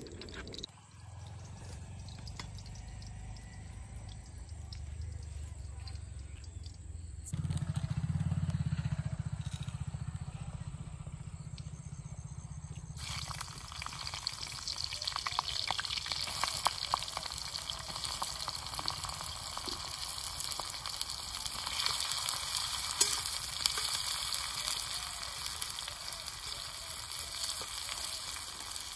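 A low steady rumble, then about halfway through food goes into hot oil in a wok and sizzles steadily with dense crackling; near the end a spatula stirs it.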